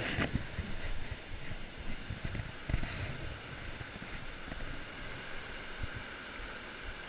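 Shallow mountain stream rushing steadily over rocks and small cascades, with a few low bumps of wind and handling on the microphone, the loudest about three seconds in.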